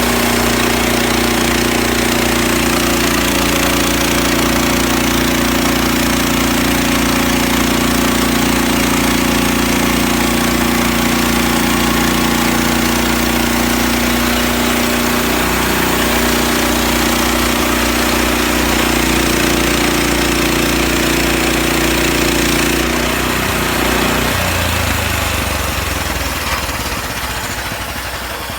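Sawmill running steadily, its engine note under a dense hiss. About 24 seconds in the engine note drops lower and the sound eases slightly.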